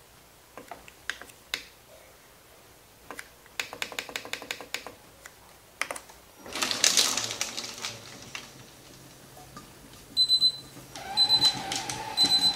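Button presses on a Moulinex Cuisine Companion's control panel: scattered clicks, then a fast run of clicks as the timer is stepped up, and a short burst of noise about six seconds in. Near the end the machine gives three short high beeps about a second apart, signalling that the cooking program has finished.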